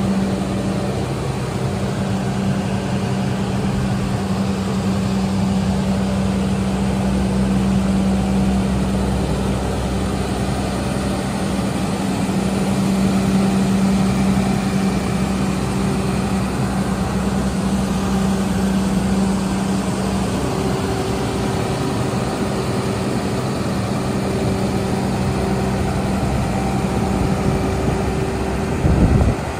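DAF LF55 skip loader truck's diesel engine idling steadily, with a brief thump near the end.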